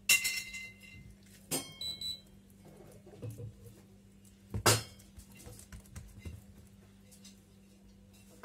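Dishes clink twice in the first two seconds, each with a brief ring. A louder, duller knock comes about four and a half seconds in. A steady low hum sits underneath.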